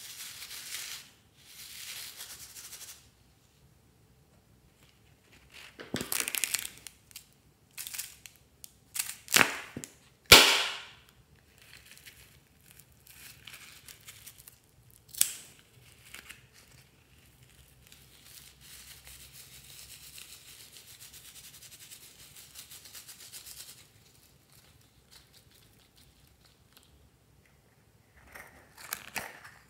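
Hands rubbing a mesh squishy ball, then scissors snipping through the plastic net of a mesh stress ball: a handful of sharp snaps, the loudest about ten seconds in, followed by a soft rustle of the cut mesh being handled.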